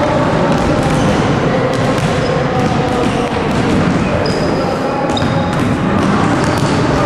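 Basketballs bouncing on a gym floor and hitting the backboard and rim, irregular thuds echoing in a large hall over a busy background of children's voices.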